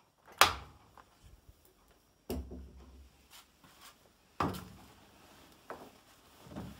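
Clicks and knocks from the door of a Miele Professional PT 7186 XL tumble dryer being handled and opened: three sharp strikes about two seconds apart, the first the loudest. Near the end comes soft rustling as the dry rags are pulled from the drum.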